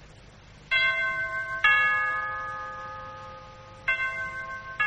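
Two-note bell chime, a higher note followed by a lower one that rings on and fades, sounded twice.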